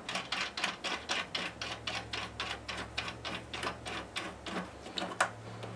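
Rapid run of light clicks, about four a second, as the outside nut is tightened onto an acoustic guitar's endpin output jack.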